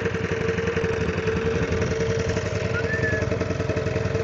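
A small boat engine running steadily at a constant speed, with a fast even chugging pulse under a steady drone.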